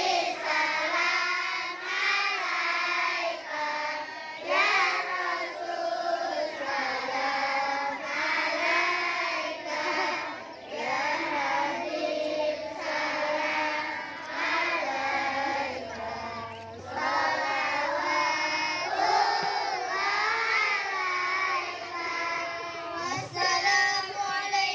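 Children singing a sholawat, a devotional song praising the Prophet, together into microphones in one continuous melodic line with long, bending held notes.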